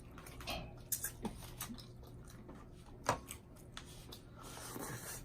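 Quiet eating sounds at a takeout meal: a few soft clicks of utensils and food containers, with a longer rustle near the end.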